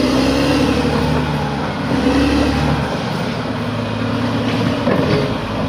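Bulldozer's diesel engine running under load, its pitch rising and falling as it works.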